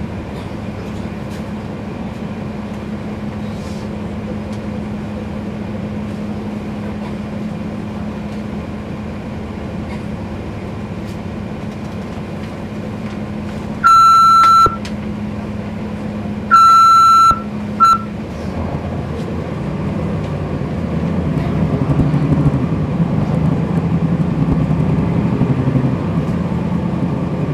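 Inside a NABI 40-SFW transit bus, its Cummins ISL9 diesel runs at idle with a steady hum. Past the halfway point three loud electronic beeps sound, two long and one short. After them the engine grows louder under load as the bus moves off.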